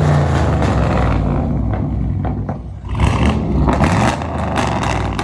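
A car engine running, with the revs coming up again about three seconds in.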